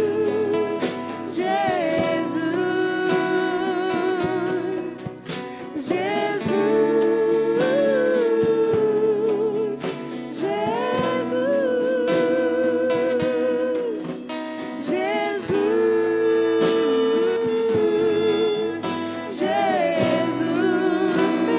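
Acoustic worship music: a voice singing long held notes with vibrato over acoustic guitar chords.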